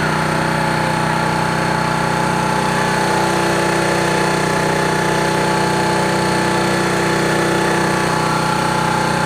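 A motorboat's engine running steadily at an even pitch.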